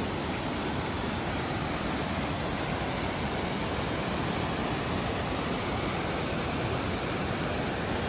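Steady rush of a fast-flowing river, an even wash of water noise.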